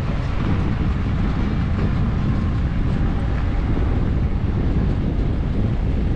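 Steady low rumble of wind buffeting the microphone on the move, with a vehicle running underneath.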